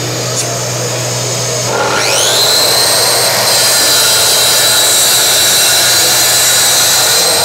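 Mafell plunge-cut track saw starting up with a quickly rising whine about two seconds in, then running at steady speed and winding down near the end. Under it runs the steady hum of the connected dust extractor, which also holds the guide rail down by suction.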